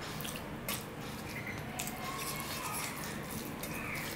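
Wet, squishy eating sounds: rice and curry being mashed together by hand on a steel plate and chewed, with short sharp clicky smacks every second or so.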